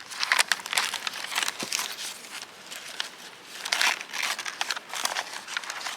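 Sheets of stacked computer paper rustling and crinkling as they are pulled apart and handled, in many short, uneven rustles.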